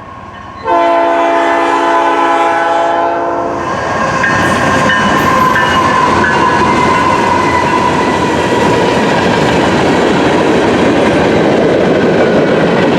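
Freight locomotive air horn sounding one long blast of about three seconds, starting just under a second in, followed by the loud, continuous rumble and clatter of the freight train passing close by, with a steady high-pitched tone running over it.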